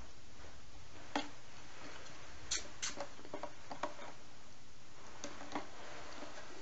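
Scattered light clicks and taps of an ASUS X99-A motherboard being handled and turned in the hands, about eight in all, the loudest about a second in, over a steady hiss.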